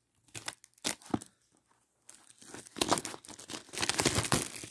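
Plastic shrink wrap being torn and crinkled off a Blu-ray case: a few short rips, then from about two seconds in a denser, continuous crinkling.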